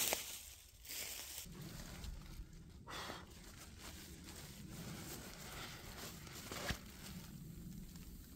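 Rustling and crinkling handling noise as camp gear is unpacked, with a sharp knock at the start, a swish about three seconds in and a short click near the end.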